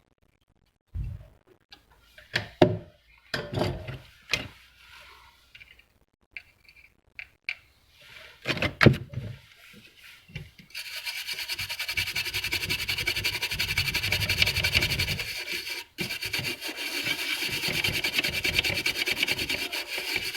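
Scattered light knocks and clicks of handling, then a long run of rapid, even rubbing or scrubbing strokes that stops briefly once and resumes.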